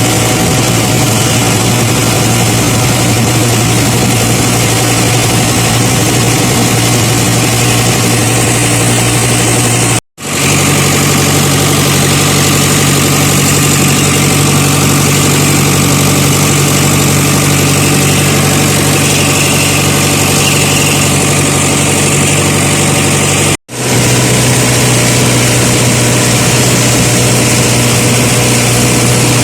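An engine running steadily at idle with a constant low hum. It cuts out abruptly for an instant twice and resumes with a slightly different pitch.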